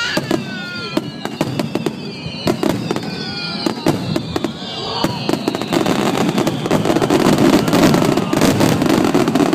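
Fireworks going off in quick succession, sharp cracks and pops that thicken into a dense, louder crackling barrage over the second half.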